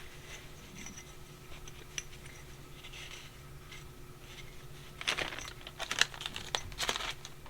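Faint clicks and scrapes of metal carburetor parts being handled, growing busier with a cluster of sharper clicks and scraping from about five seconds in.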